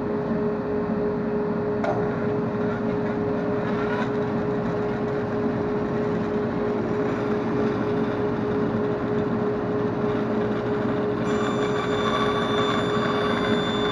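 Workshop dust collector and Grizzly G0555LZ bandsaw running, a steady loud machine hum with one strong drone tone. About eleven seconds in, a higher whine joins.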